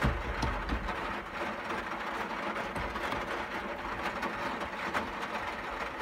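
Light knocks and clicks of a replacement blower motor being fitted into the plastic heater-unit housing of a Daihatsu Hijet S200P kei truck, with heavier bumps just after the start, over a steady mechanical hum.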